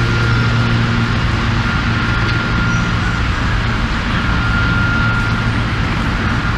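Steady city street noise: a low engine-like hum, with a thin high steady tone that fades out and returns.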